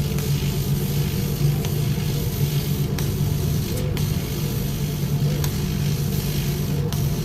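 100-watt CNC laser cutting machine running while cutting: a steady low hum with a few faint ticks.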